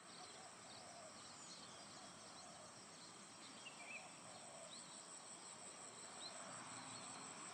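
Faint natural outdoor ambience cutting in suddenly: a steady, pulsing high insect trill over an even hiss, with a few short bird chirps scattered through.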